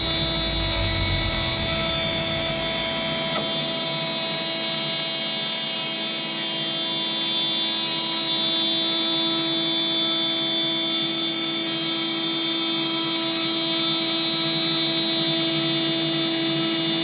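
CNC router spindle running at about 18,000 RPM while its bit cuts a gasket out of sheet gasket material: a steady whine made of several held tones.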